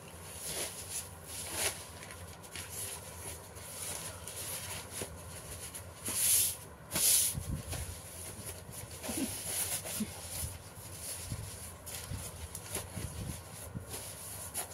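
Sheets of paper being handled and folded by hand: repeated short rustles and crinkles, the loudest two close together about six to seven seconds in.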